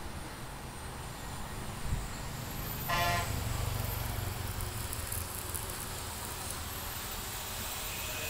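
A vehicle horn toots once, briefly, about three seconds in, over the low rumble of passing road traffic.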